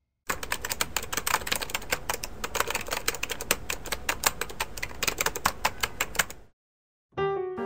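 Fast typing on a keyboard: a dense run of keystroke clicks for about six seconds that stops abruptly, followed near the end by music starting up.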